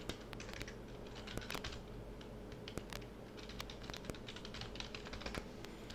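Computer keyboard keys clicking in short, irregular taps as a username and password are typed in.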